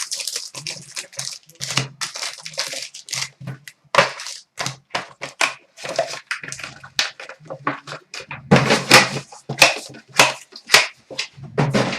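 Hockey card boxes and packs being torn open: rapid crinkling, tearing and crunching of wrapping and cardboard, a dense run of short, sharp rustles.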